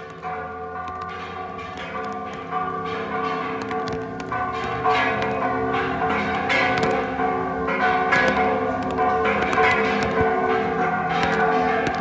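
Church bells ringing a festive repique: several bells struck in quick succession, their tones overlapping and ringing on. The ringing grows louder in steps over the first five seconds.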